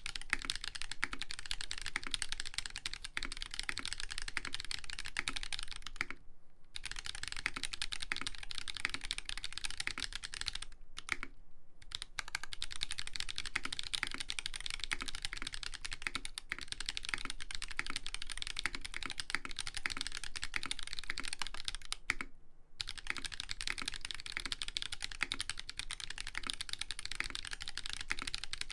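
Fast, continuous typing on a custom mechanical keyboard: Holy Panda tactile switches lubed with Tribosys 3204, on a brass plate, under ABS keycaps. The keystrokes come in a dense stream, broken by three brief pauses.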